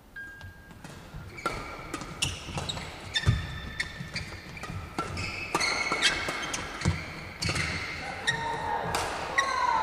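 A badminton doubles rally: sharp racket strikes on the shuttlecock and sneakers squeaking on the court floor, starting about a second and a half in and growing busier, with one long falling squeak near the end.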